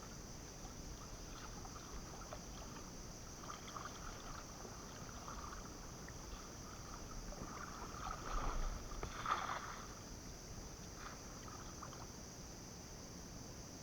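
Shallow water sloshing and splashing, with a louder flurry of splashes about eight to nine and a half seconds in.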